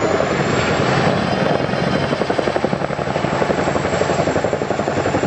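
Boeing Chinook tandem-rotor helicopter flying a display pass, its twin rotors making a loud, rapid, steady blade chop.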